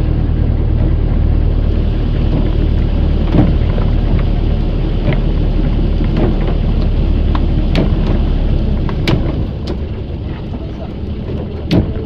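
Outrigger fishing boat's engine running with a steady low hum over rushing water and wind noise, with a few sharp knocks against the hull; the engine's deepest note drops away and the overall sound gets quieter about nine seconds in.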